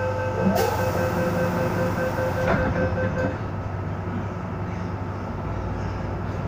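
Door-closing warning beeps of an MTR M-Train, a rapid beeping for about three seconds while the sliding doors close, with a knock as they shut about two and a half seconds in, over the train's steady low hum.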